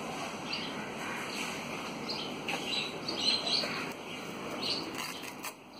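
Small birds chirping in short, repeated calls over a steady background hiss, with a few sharp clicks near the end.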